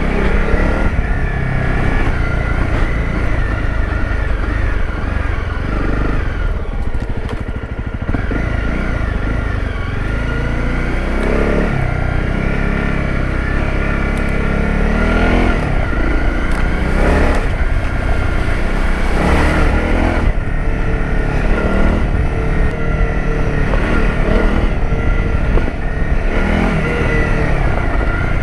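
Honda CRF250 Rally's single-cylinder four-stroke engine being ridden off-road, its pitch rising and falling as the throttle is opened and closed several times.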